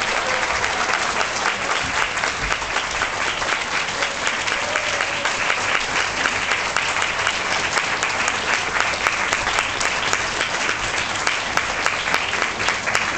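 Audience applauding: dense, steady clapping that thins into more separate claps near the end.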